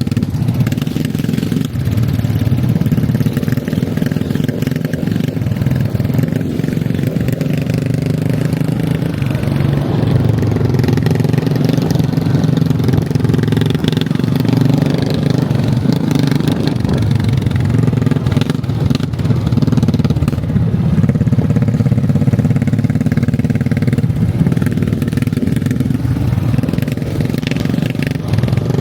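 ATV engine running steadily under way during a ride.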